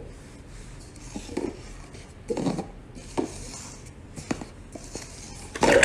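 A few light knocks and clatters, spaced irregularly about a second apart, with a louder burst of noise near the end.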